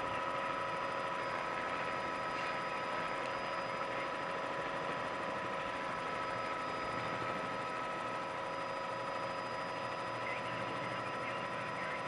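News helicopter's engine and rotor noise: a steady drone with constant whining tones.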